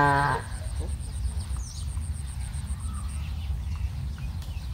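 The end of a cow's deep moo, cutting off just after the start, followed by a steady low rumble with a few faint high chirps.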